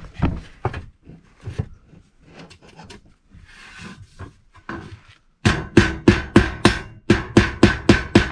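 Hammer driving a nail into wood: a few light, scattered taps, then from about five seconds in a steady run of hard blows, about three a second, each with a short ring.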